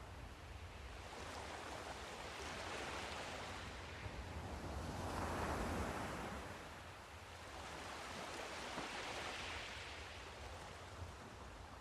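Sea surf: waves washing in and drawing back, rising and falling in slow surges about every three to four seconds, the biggest a little past halfway, over a steady low rumble.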